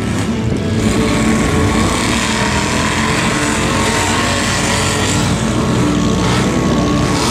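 Square-body Chevy Suburban mega mud truck's engine running hard and steady as the truck drives through a mud pit.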